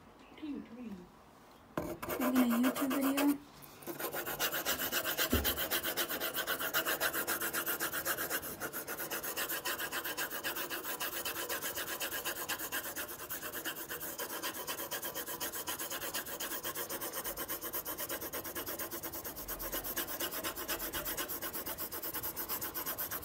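Pencil shading on lined notebook paper: rapid, steady back-and-forth scratching strokes of the lead rubbing the page. A brief steady low tone sounds about two seconds in, before the scratching settles in.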